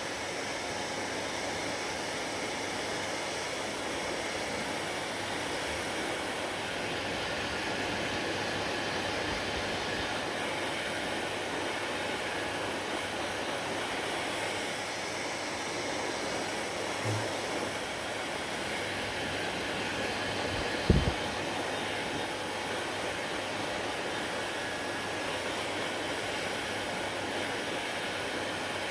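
Hair dryer blowing steadily with an even rushing hiss. A single short low thud about 21 seconds in is the loudest moment.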